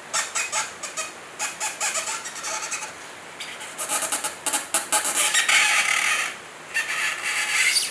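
Plastic being crinkled and rubbed: irregular crackling clicks with short squeaks, and two longer scratchy stretches near the middle and the end.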